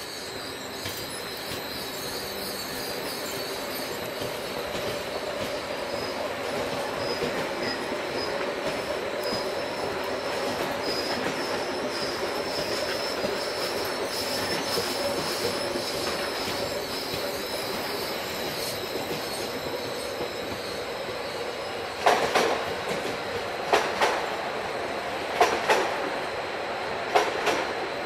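Stadler FLIRT electric multiple unit pulling out along the platform: a steady running noise with a thin high whine and wheel squeal. Near the end comes a series of sharp clacks from the wheels on the track.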